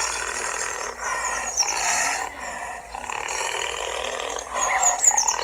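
Animal calls: wavering pitched cries, with short high chirps about a second in and again near the end.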